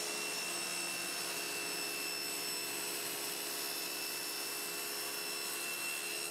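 Table saw running steadily, its blade cutting through a thin HPL laminate panel: a constant whine over an even hiss.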